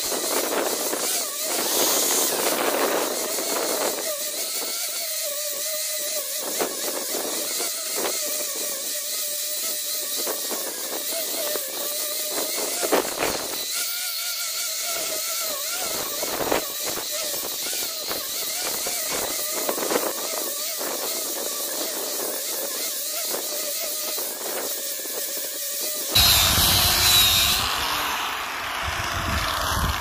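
Angle grinder with a sanding disc running steadily while it sands a wooden beam. Its motor whine wavers up and down as the disc is pressed into the wood and eased off. About four seconds before the end the sound switches to a louder, deeper rushing noise.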